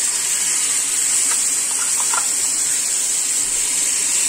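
Marinated fish pieces sizzling steadily in hot oil in a frying pan over a high gas flame.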